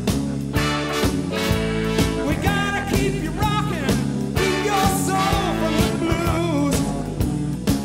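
A recorded song with a steady drum beat and held instrumental notes.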